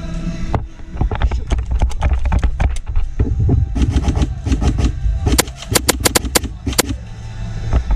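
Airsoft gunfire during close-quarters play: scattered sharp shots, then a rapid string of about nine shots about five seconds in, over low rumbling handling and movement noise.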